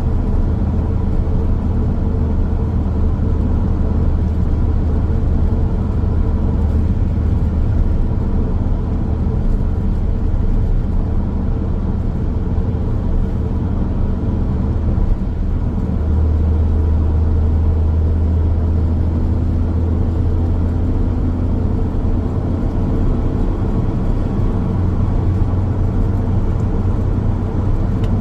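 Road noise of a car driving along a highway: a steady low rumble that swells slightly about halfway through.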